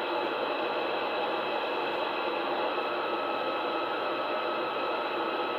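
CB radio receiver hissing with steady static on an empty channel, the band noise reading S7 on the meter and burying the weak skip station. A faint steady whistle joins the hiss about halfway through.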